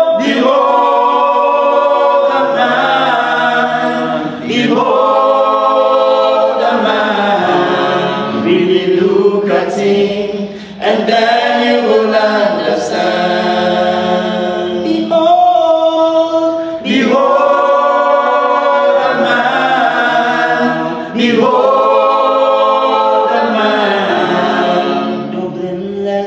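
Male a cappella vocal group of five singing in close harmony, in sustained phrases a few seconds long.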